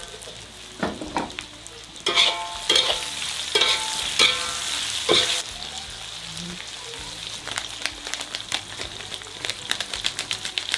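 Tofu strips and pork cracklings sizzling as they are stir-fried in an iron wok. A metal spatula scrapes and strikes the wok, which rings with about five loud clangs between two and five seconds in. Quick crackling and scraping follow.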